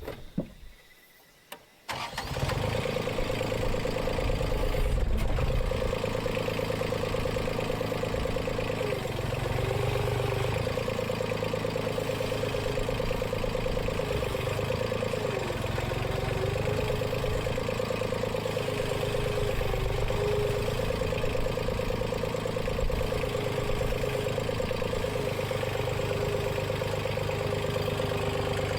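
Komatsu PC05-7 mini excavator's diesel engine comes in abruptly about two seconds in, then runs steadily under work, its steady whine dipping briefly a few times.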